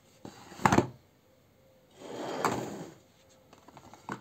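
Cardboard toothpaste boxes and a ceramic plate being handled on a tabletop. A sharp knock comes about half a second in, a longer sliding scrape follows around the middle, and a few light taps come near the end.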